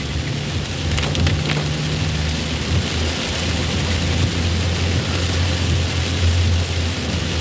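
Heavy rain pelting the roof and body of an ambulance van, heard from inside the cabin as a dense, even hiss, over the steady low hum of the van's engine.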